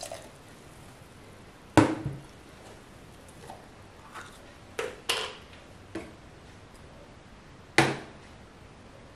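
Sharp knocks and clatters of kitchenware handled on a hard countertop: a loud knock about two seconds in, several lighter taps and clinks in the middle, and another loud knock near the end.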